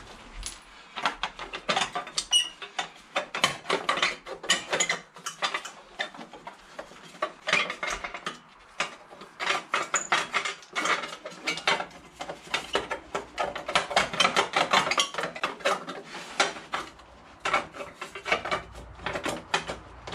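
Socket ratchet clicking in quick bursts with short pauses, mixed with metal clinks of tools and bolts, as the bolts holding a motorcycle's heat shield panel are undone.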